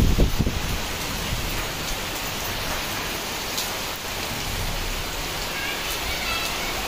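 Heavy rain falling in a steady downpour, hissing evenly on roofs and surfaces. A low rumble dies away in the first half second.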